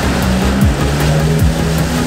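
Background electronic music: a deep kick drum that drops in pitch, hitting about every three-quarters of a second, over a steady held bass line.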